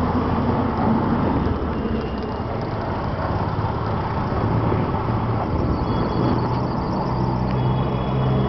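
Road traffic noise with a vehicle engine running steadily, its low hum growing stronger about six seconds in.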